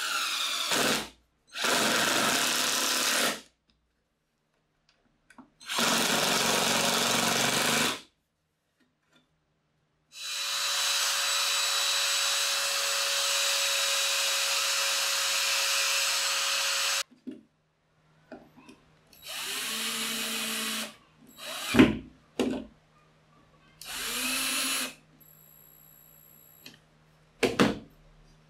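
Cordless drill driving screws through a perforated metal sheet into plywood, run in repeated bursts with short pauses between them; the longest burst lasts about seven seconds. A couple of sharp knocks come near the end.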